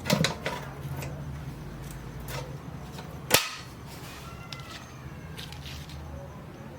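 Sharp clicks and knocks, a cluster at the start and one loud crack about three and a half seconds in, over a steady low hum.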